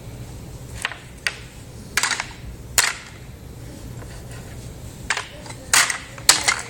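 Toy cookware and play food being handled, giving about eight irregular sharp knocks and clacks, the loudest ones near the end.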